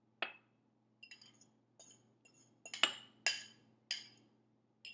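Clinking of kitchenware against a glass bowl: several separate sharp clinks, the strongest three about half a second apart a little past the middle.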